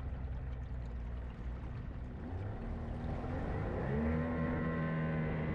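Boat engine running, then revving up about two seconds in and holding steady at a higher pitch over a low rumble.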